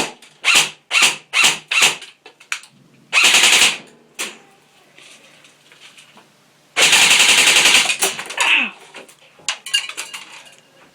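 GR15 airsoft gun firing: a quick string of single shots, then a short full-auto burst about three seconds in and a longer burst of about a second near seven seconds. Scattered small clicks follow, the BBs striking and bouncing around the room.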